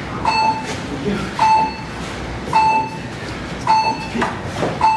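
A short electronic beep repeating steadily, five times about 1.1 seconds apart, over background voices.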